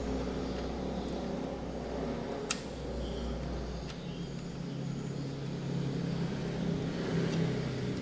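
Steady low mechanical hum, like a motor or engine running in the background, whose pitch shifts about halfway through. One sharp click about two and a half seconds in, as a 2.5-inch SATA SSD and its metal bracket are handled into a laptop's drive bay, with a few faint ticks later.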